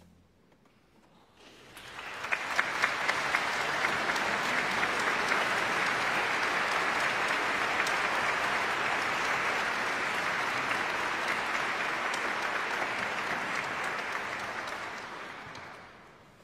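Audience applauding. A moment of hush first, then clapping that starts about two seconds in with a few sharp single claps, fills out into steady applause and dies away near the end.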